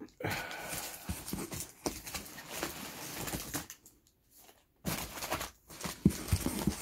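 Cardboard box and its packing being handled and rummaged through: rustling and crinkling with a couple of short pauses, and a few dull knocks near the end as items are lifted out.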